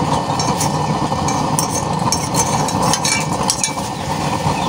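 Diesel-fed 1/2-inch no-welding burner running at full blast on a 5 V blower: a steady, strong rush of forced-air flame. A scatter of small clinks and crackles comes from about half a second to three and a half seconds in.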